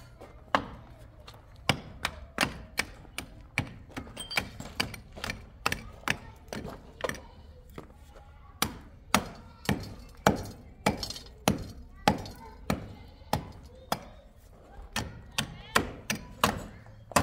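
Hand hammer striking the brick and mortar at the foot of a wall: a long series of sharp blows, roughly one to two a second, with a short pause midway.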